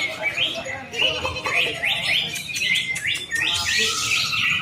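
Cucak ijo (greater green leafbird) singing in a rapid, varied run of rising chirps and whistles, with other birdsong mixed in.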